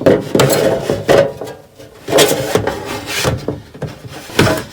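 Handling noises of a Samsung VCR's case being taken apart: scraping and clattering of the cabinet cover in two stretches, at the start and again about two seconds in, with a short knock near the end.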